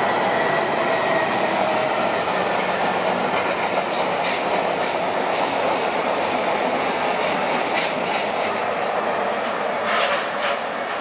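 Freight train of open wagons rolling past: a steady rumble of wheels on rail with clicks over the rail joints from about four seconds in, loudest around ten seconds as the last wagon passes, then starting to fade.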